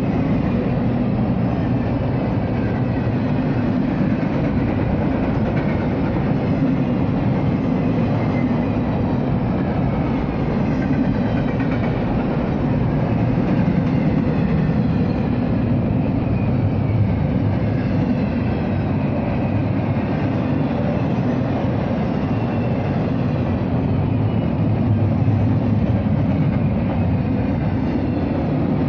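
Double-stack intermodal container train rolling steadily past at close range: a continuous rumble and rattle of steel wheels on the rails and of the passing cars.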